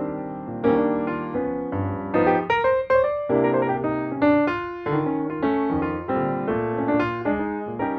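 Background music: a gentle piano piece, single notes and chords struck one after another at an unhurried pace.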